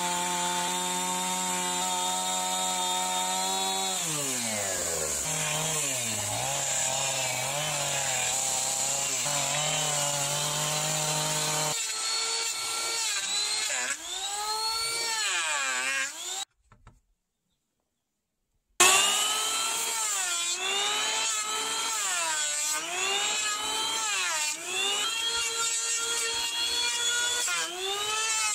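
A two-stroke gasoline chainsaw runs at high revs cutting into a persimmon log; about four seconds in its pitch drops, and it keeps running lower and steadier until about twelve seconds in. Then an electric hand planer shaves the log, its motor whine dipping under load and spinning back up with each pass, roughly once every second or so. The planing is broken once by a brief silence.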